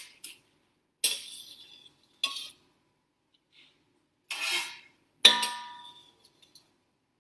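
A kitchen utensil clinking and scraping against cookware: a few separate knocks and a short scrape. The loudest knock comes about five seconds in and rings briefly.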